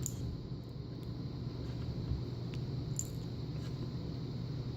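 A few faint, light metallic ticks from small lock pins and parts being handled while the sixth top pin is taken out of the lock's bible, over a steady low hum.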